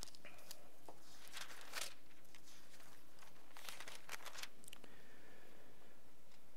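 Soft rustling of Bible pages being turned to Hebrews 13, a few brief crinkles over a steady low room hum.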